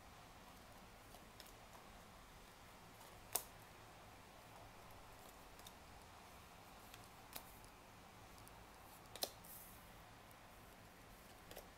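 Tarot cards being laid down one at a time on a wooden tabletop, giving a few separate sharp taps a few seconds apart over quiet room tone.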